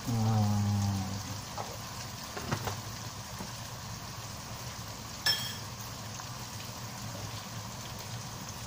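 Blended chilli sambal simmering in oil in a wok, a steady soft bubbling sizzle. A single sharp click comes about five seconds in.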